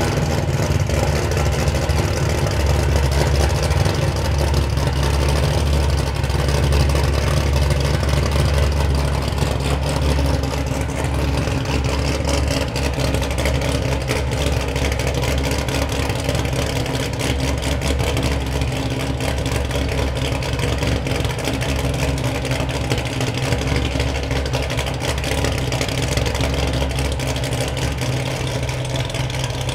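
Katech-built 700 hp 427 LT V8 in a Corvette Grand Sport idling steadily through ARH mid-length headers and a quad-tip exhaust.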